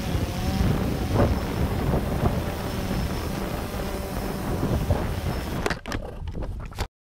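Camera drone's propellers running with wind rushing on its onboard microphone. Near the end the noise breaks up into a few sharp knocks as the drone comes down in the grass, then cuts off.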